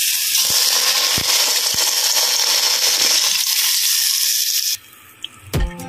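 Hot oil sizzling as it hits chili flakes, sesame seeds and sliced green chilies in a glass dish: a loud, dense hiss that cuts off suddenly a little over a second before the end. Near the end come a knock and the start of guitar music.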